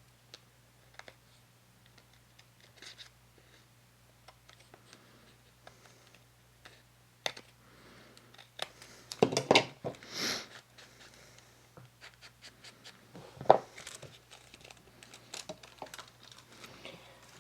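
Paper being handled while a junk journal page is assembled: soft rustling, sliding and small taps. There is a louder stretch of crinkling about nine to ten and a half seconds in, and one sharp tap a little after thirteen seconds.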